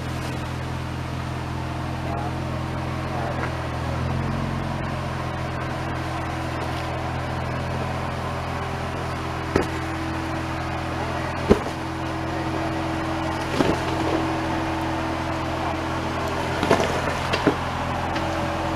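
Jeep engine running low and steady at crawling speed on a rock ledge, with a few sharp knocks of tyres or underbody on rock in the second half, the loudest about halfway through.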